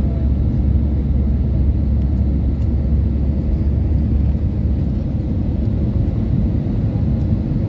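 Steady low rumble of an Airbus A320neo's engines and airflow, heard inside the passenger cabin on approach to land. The deepest part of the rumble eases a little about halfway through.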